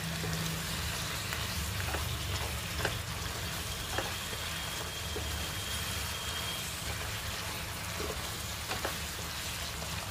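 Mutton pieces in masala sizzling in a nonstick pan as a wooden slotted spatula stirs them, with a few light knocks and scrapes of the spatula against the pan. The meat is cooking in the water it has released.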